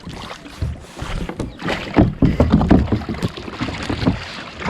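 Kayak paddle strokes splashing and sloshing water, with a louder cluster of splashes about two seconds in.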